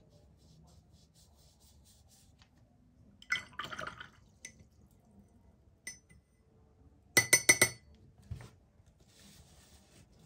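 Watercolour brush clinking against the water cup: a short rattle of clinks a little past three seconds, then a quick run of four or five sharp ringing taps about seven seconds in, the brush being rinsed and knocked on the rim while wetting the paint pans.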